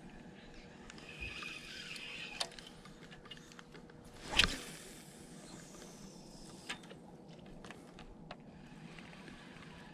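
A fishing rod swished through a cast: one loud, brief whoosh about halfway through, with a few light clicks before and after.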